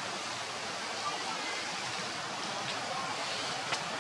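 Steady rain falling on tree leaves, an even hiss, with a couple of faint sharp ticks in the last part.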